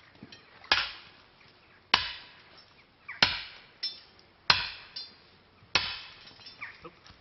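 Hand-held sledgehammer striking a hot iron bloom to consolidate it: five heavy blows about one and a quarter seconds apart, each with a short metallic ring, and a few lighter knocks in between.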